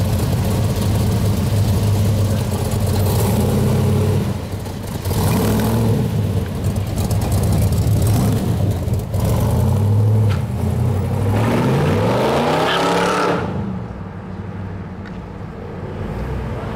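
1967 Corvette Stingray's 427 big-block V8 (L68) running at idle, then pulling away with the revs rising in a sweep about twelve seconds in. After that the engine is much fainter and more distant.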